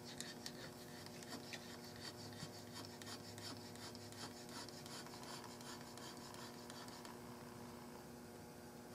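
Hand checkering tool cutting the checkering lines into a walnut rifle stock's pistol grip, with repeated short, faint scraping strokes of the cutter across the wood.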